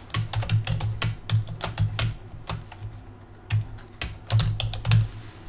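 Typing on a computer keyboard: a fast run of key clicks, a pause of about a second midway, then a second run of keystrokes.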